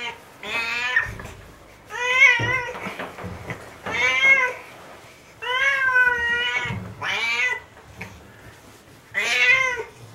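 A domestic cat meowing over and over, six long, wavering complaints about one every second and a half, while it is being rubbed dry with a towel after a bath; the owner wonders whether the scratchy towel is hurting it.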